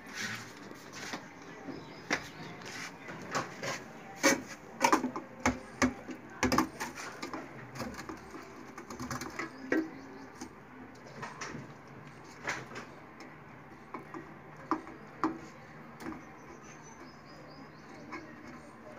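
Raw beef chunks being put by hand from a steel tray into an aluminium cooking pot: a run of irregular knocks and metal clinks, thickest about four to seven seconds in.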